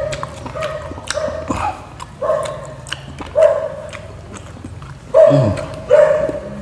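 Dog whining in short, high pitched cries repeated every second or so, the loudest about five seconds in with a pitch that rises and falls. Faint crisp clicks of chewing sound between the cries.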